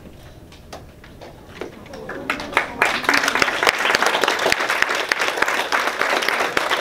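Audience applauding: a few scattered claps at first, building into full, dense applause about three seconds in.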